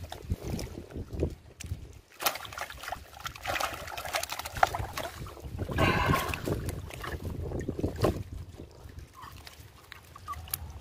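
Water sloshing and dripping off a mesh fish keep net as it is lifted out of shallow lake water, with a few light knocks from handling the net.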